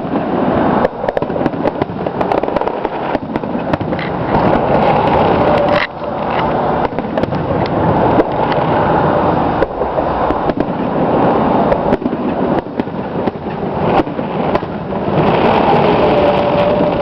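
Fireworks bursting in a dense, continuous barrage: many sharp bangs overlapping with crackle and rumble, with no real pause.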